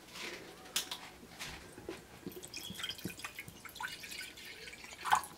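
A plastic water bottle twisted open with a few sharp crackling clicks from the cap. From about two seconds in, water is poured from the bottle into an empty white ceramic dish, trickling and splashing.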